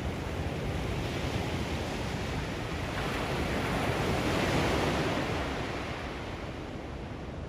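Ocean surf breaking on a sandy beach: a steady wash of waves that swells as one wave breaks about halfway through, then eases off as it runs out.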